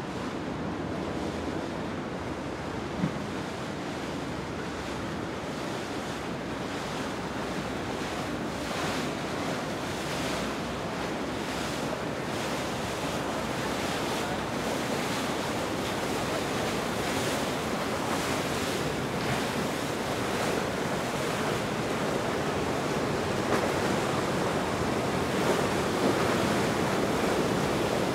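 Steady rushing of wind and water: wind buffeting the microphone over the wash of the river, slowly growing louder.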